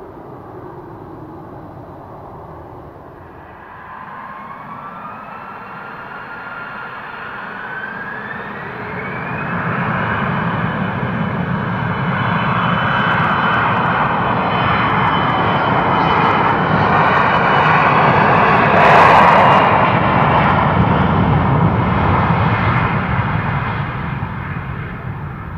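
Embraer regional jet's twin turbofan engines at takeoff power. A whine rises in pitch over several seconds, then the engine noise builds steadily to its loudest about two-thirds of the way through and fades near the end as the jet departs.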